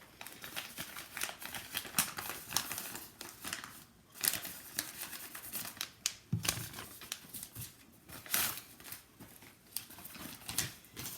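A paper envelope being opened and its contents pulled out, with irregular crinkling and rustling of paper and packaging.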